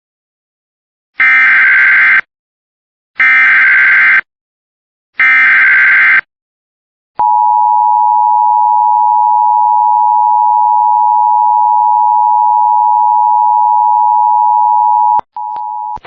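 Emergency Alert System SAME header: three one-second bursts of warbling digital data tones, about a second apart. Then comes the EAS attention signal, a steady two-tone alarm held for about eight seconds, and a brief quieter tone near the end.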